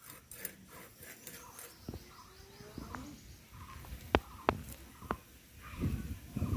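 A few separate sharp clicks of fish being cut through with a blade, over a quiet background with faint bird chirps.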